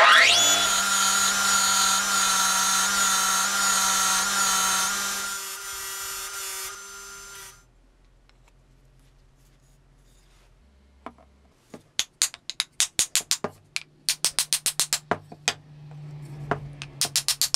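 Grinding wheel running with a steady whine while the brazed tip of a steel ball-peen hammer head is ground against it; the grinding eases off about five seconds in and the wheel spins down a couple of seconds later. Near the end, runs of quick, sharp taps.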